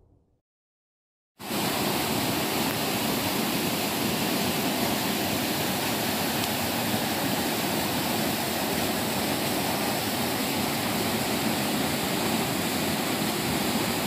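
Small waterfall and rocky stream rushing steadily, cutting in abruptly about a second in after a moment of silence.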